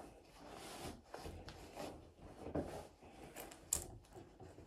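Faint rustling of clothing as a top is tucked into trousers and the waistband adjusted, with scattered light knocks and one sharp click near the end.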